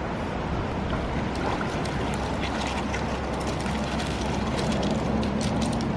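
Wet dog splashing out of a creek onto gravel and shaking water from its coat, with a patter of spattering drops through the middle of the clip, over a steady background hiss.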